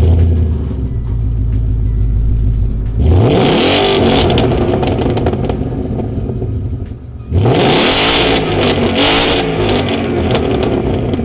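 Ford Mustang GT's 5.0-litre V8 idling through an aftermarket cat-back exhaust with an X-pipe. It is revved twice, about three seconds in and again about seven seconds in, each rev rising and then falling back to idle.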